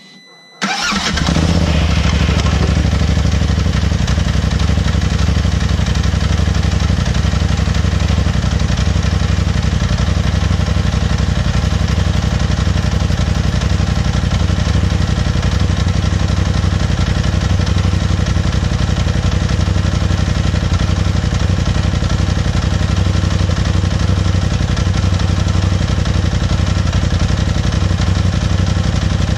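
2018 Polaris RZR XP Turbo side-by-side's turbocharged engine starting abruptly under a second in, then idling steadily. This is a test run after re-shimming the secondary clutch with a snap ring delete kit, which the owner fitted to cure hard shifting in and out of gear at idle.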